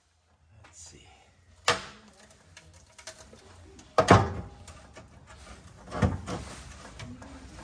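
Three sharp knocks or clunks about two seconds apart, the second the loudest.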